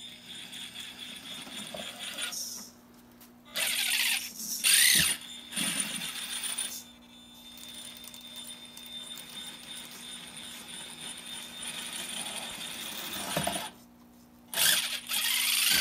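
Brushless RC rock crawler climbing a wooden ledge: bursts of motor and drivetrain noise with the tyres scrabbling and knocking on the wood, about four and six seconds in and again near the end. A faint steady whine runs between the bursts.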